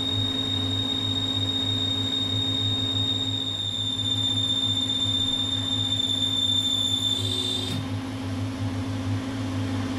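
Weiler Matador metal lathe running at 1800 rpm on a light finishing pass, giving a steady hum with a high-pitched whine over it. The whine stops about seven and a half seconds in, while the hum runs on.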